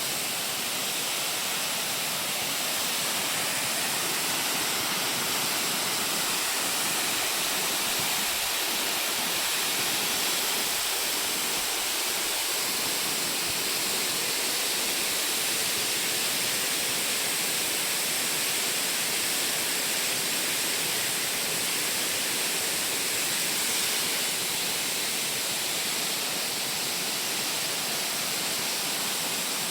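Waterfall pouring: the male fall (Otaki) of Dangyo Falls, a steady, even hiss of falling water.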